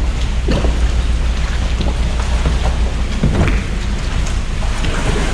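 Loud, steady rushing water-and-wind noise around a small boat at sea, with a deep rumble and irregular splashes or patters.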